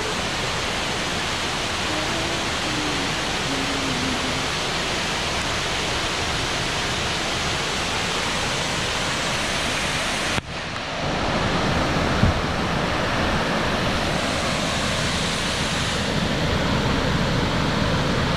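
Horsetail Falls, a tall waterfall cascading over rock, giving a steady rushing roar of falling water, broken briefly by a cut about ten seconds in.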